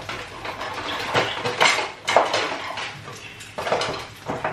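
Metal cutlery clinking and rattling in a kitchen drawer's utensil tray as a hand rummages through it: a string of irregular clinks, loudest about one and two seconds in.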